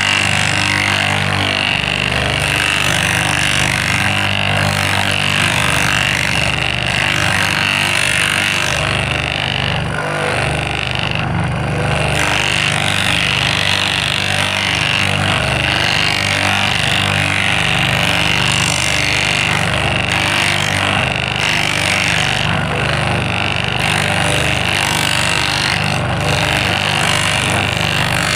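Small electric motor running continuously, with a steady high whine over a low, wavering hum.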